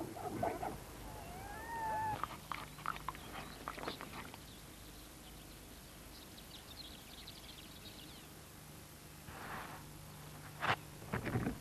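Leopard calling: a few short, harsh calls near the end, the loudest about ten and a half seconds in. Earlier there is a short gliding whistle about two seconds in, and faint high chirping in the middle.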